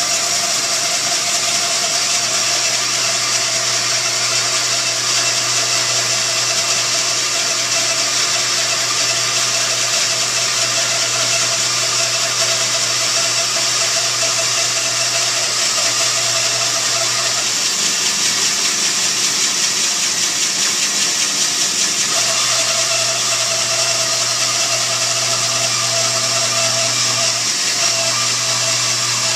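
Bandsaw running steadily while a thick block of Newfoundland juniper, a hard wood, is fed through it. The sound is a loud, even motor hum under a hissing cut, and the low hum eases for a few seconds past the middle.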